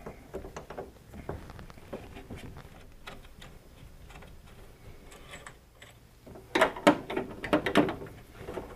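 Clicks and clinks of metal hardware as heavy 4/0 cable lugs are fitted onto DC breaker terminal studs and their nuts run down. A louder run of rattling clinks comes about six and a half seconds in.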